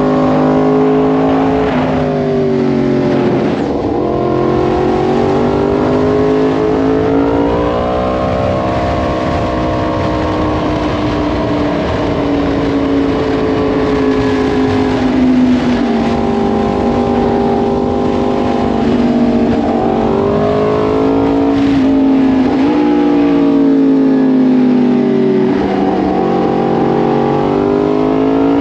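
Yamaha MT-10's crossplane inline-four engine running at speed, its pitch falling as the throttle is rolled off and rising again when it is opened, several times over, with a long slow fall in the middle. Wind rushes over the microphone throughout.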